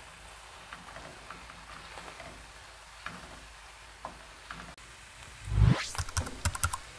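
Diced onions and garlic frying with a soft, steady sizzle in a stainless steel skillet while a wooden spoon stirs them. About five and a half seconds in, a short run of louder scrapes and knocks as the spoon works against the pan.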